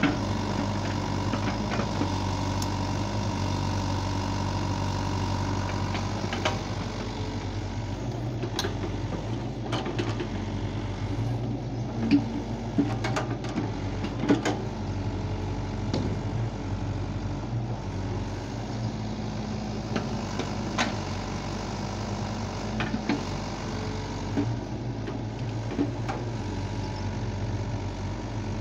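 Diesel engine of a SANY compact crawler excavator running steadily under load while it digs, with scattered sharp knocks and clanks as the bucket works the soil.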